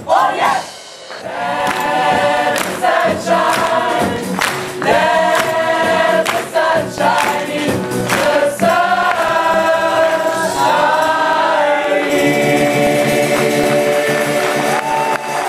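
A musical-theatre cast singing together in chorus with a band, the voices ending on a long held chord about twelve seconds in.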